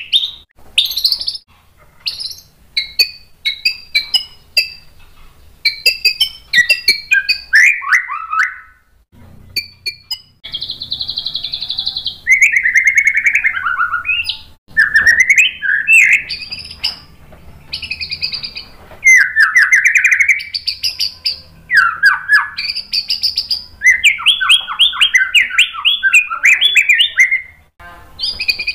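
White-rumped shama singing a long, varied song of loud whistled phrases and rapid trills, broken by short pauses and one longer pause about a third of the way through.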